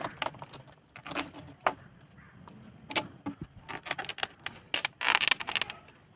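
Plastic pipe pieces and tee fittings clicking and knocking as 20 mm black pipe is pushed and pressed into tees. There is a denser stretch of scraping and rubbing about five seconds in.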